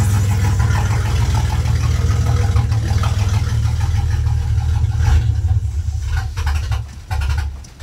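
A GM truck's fuel-injected engine, with a cleaned injection spider and new fuel pump and filter, idling steadily on its first run after four and a half years of sitting. A few sharp clicks come near the end as the sound drops in level.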